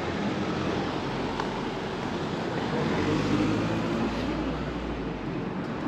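Outdoor street noise with a motor vehicle engine running, its low hum a little louder about halfway through.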